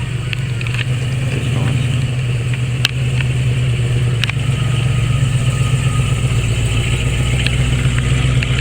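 Car engine running at a steady speed, a low even drone with a few light ticks over it.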